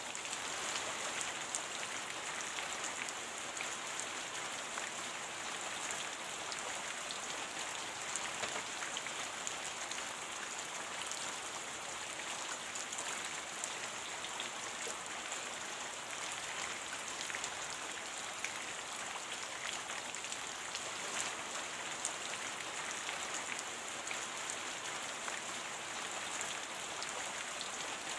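Steady rain: an even hiss of falling rain dotted with countless small drop ticks, unchanging throughout.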